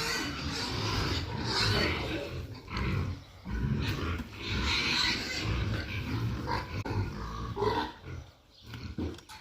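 Pigs making rough, uneven grunts and calls as they are fed, the sound dropping away briefly near the end.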